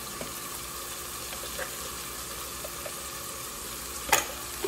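Blended shallot and garlic paste sizzling steadily in hot oil in an aluminium pot, with a sharp click about four seconds in.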